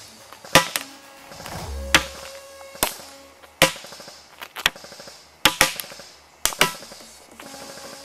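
D-Boy MK16-L airsoft electric gun firing about a dozen sharp shots at uneven intervals, some in quick pairs, over background music with a pulsing bass.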